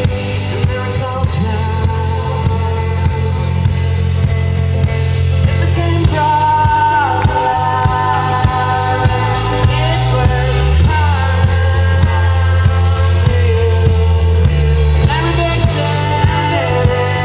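Live band music played loud over a festival PA: a steady bass line and regular drum beat, with a sung vocal line coming in about six seconds in.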